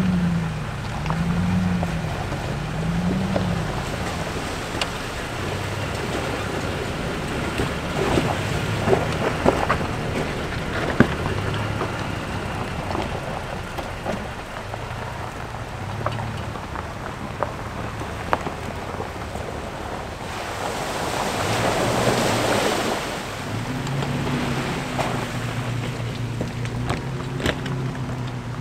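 Off-road SUV engine running at low revs, the pitch rising and falling, while the tyres splash through water and knock over rocks, with a louder rush of water about two-thirds of the way through.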